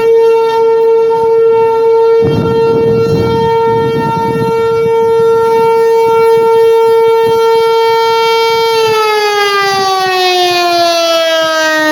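American Signal Corporation T-128 outdoor warning siren sounding for a snow emergency: a loud steady tone, which about nine seconds in begins to fall steadily in pitch.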